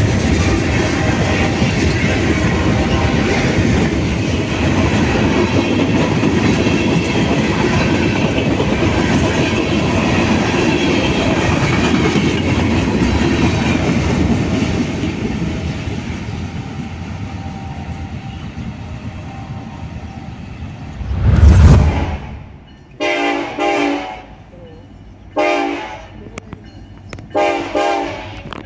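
Freight cars of a passing train rolling by close at hand with a steady rumble and clacking of wheels over rail joints, fading away after about fifteen seconds. After a brief loud thump, a CPKC diesel locomotive's air horn sounds a series of blasts, the last the longest, as it approaches a road crossing.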